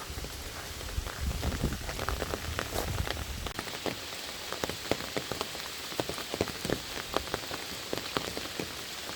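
Rain falling steadily, with many separate drops tapping sharply close by. A low rumble sits under it for the first third, then stops suddenly.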